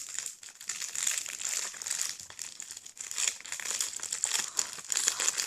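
Plastic packaging crinkling continuously as it is handled and pulled open, a dense irregular crackle.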